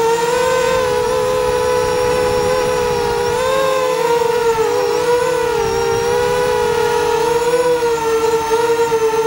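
Eachine Falcon 210 quadcopter's motors and propellers whining steadily in a hover. Several close tones waver slightly in pitch as the throttle is adjusted, dipping briefly about halfway through.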